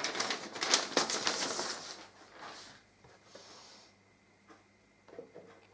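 Paper record sleeve rustling as a vinyl LP is slid out of it, for about two seconds, followed by quiet handling of the record with a couple of faint clicks near the end.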